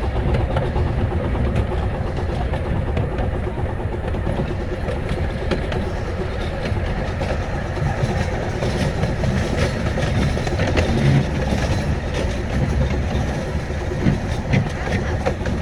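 Passenger cars of a 15-inch-gauge steam train rolling along the track: a steady low rumble with scattered clicks of the wheels over the rails.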